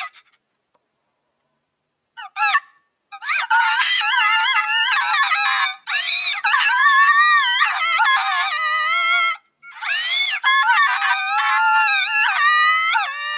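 Cartoon girl character Little Miss Calamity crying in long, high-pitched wails that rise and fall, with a couple of short breaks, the voice run through video-editor sound effects.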